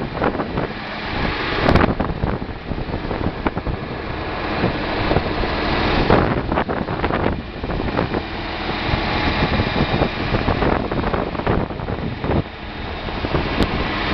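Wind buffeting the microphone in uneven gusts, over the low steady running of a 1969 Massey Ferguson 1130's six-cylinder diesel engine.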